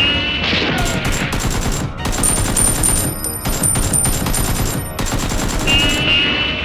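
Rapid gunfire in fast, dense runs of shots, over background music.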